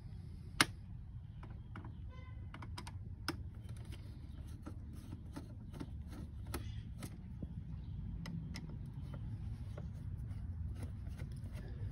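Small screwdriver turning out the cover screws of a DVD drive's sheet-metal case: irregular light clicks and ticks, with one sharper click about half a second in.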